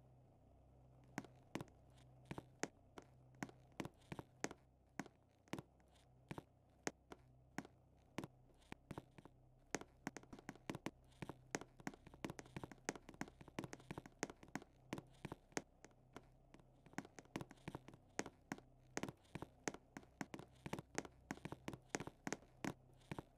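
Rapid, irregular sharp taps or clicks, several a second, starting about a second in, over a faint steady low hum.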